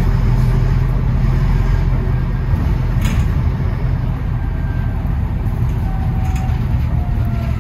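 Bus engine running with a steady low drone, a faint whine falling in pitch near the end and a single sharp knock about three seconds in.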